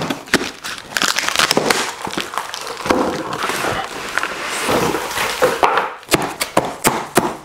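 A long cardboard shipping box being opened: plastic packing straps snipped with sharp snaps and clicks, and the cardboard lid scraping and rustling as it is pulled open.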